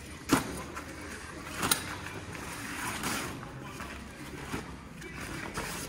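Canvas tent panels and a nylon storage bag being pulled out and handled, rustling and flapping, with a sharp knock just after the start, the loudest sound, and a smaller one just under two seconds in.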